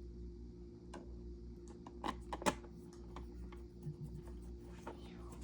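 Scattered light clicks and taps of small hard parts being handled, with two sharper clicks about two seconds in, over a steady low hum.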